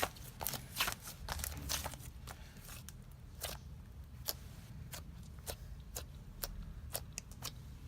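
Yellow slime being pressed and stretched by hand, giving off sharp crackling clicks and pops, many close together at first and then more spaced out.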